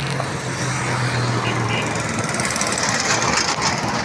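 Motor vehicle engine running amid steady road noise, with a low hum over the first two seconds.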